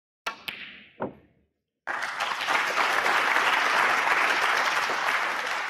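A snooker cue strikes the cue ball with a sharp click, a second click follows as it hits the blue, and a dull thud comes about a second in. From about two seconds in, the audience applauds the pot, loud and steady, beginning to fade near the end.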